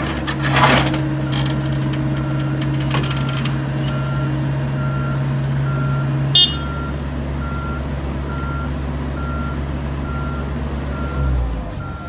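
Heavy diesel engines of an excavator and a backhoe loader running steadily under load, with a reversing alarm beeping about twice a second. Metal clattering near the start and a sharp clank about six seconds in; the engine note drops off near the end.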